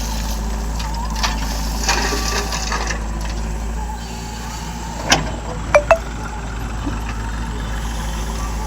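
An engine running steadily, with a few sharp knocks about five and six seconds in.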